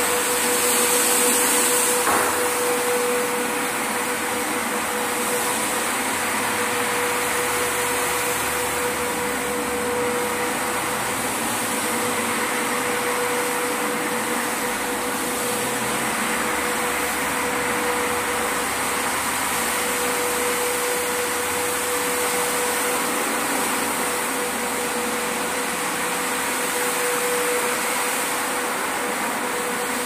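Maxis twin-motor manual carpet washing machine running steadily, its two round scrubbing heads working over a soapy carpet: a constant motor hum with one steady tone.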